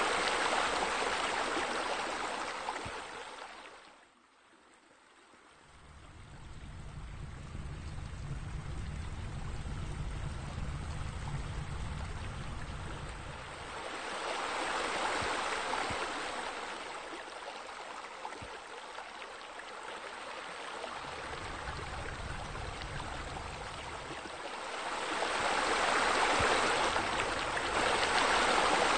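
Steady rushing and splashing of flowing water, like a small waterfall or spillway. It fades almost away about four seconds in, then swells back, growing louder again around the middle and near the end.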